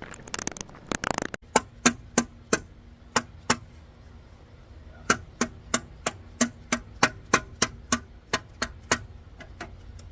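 A series of sharp metallic knocks, each with a brief ring, in irregular runs of a few per second, as the rear wheel cover of a dually pickup is tapped into place on the wheel.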